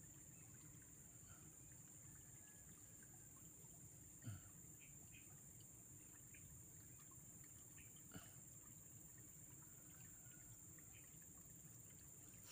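Near silence: a faint, steady, high-pitched insect drone, with a few faint ticks, a soft low thump about four seconds in and a click about eight seconds in.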